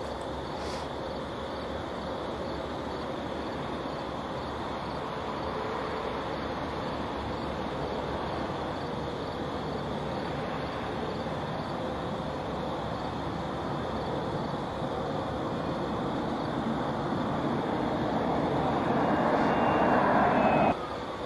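Steady vehicle-like rumble and hiss that grows louder over the last several seconds, then cuts off abruptly near the end.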